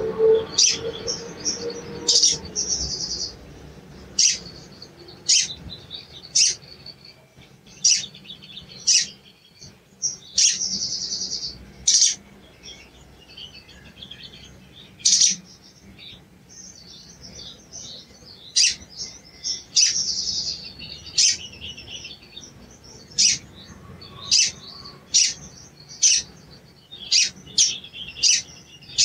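Male olive-backed sunbird giving sharp, high "cuit cuit" chirps, about one a second. It adds a short fluttering trill a few times, and the chirps come quicker near the end.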